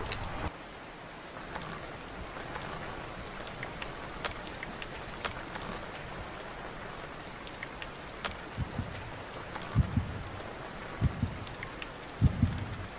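Steady rain falling on pavement, an even hiss with scattered sharp drips. Several short low thuds come in the second half.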